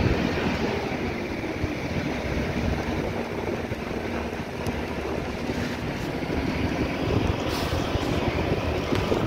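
Steady rumble of a road vehicle travelling along a mountain road, heard from inside, with wind noise over it.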